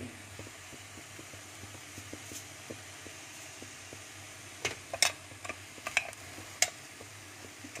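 Corn kernels and dried fish sautéing in a stainless steel pot with a steady sizzle, and a metal spoon clinks and scrapes against the pot several times in the second half.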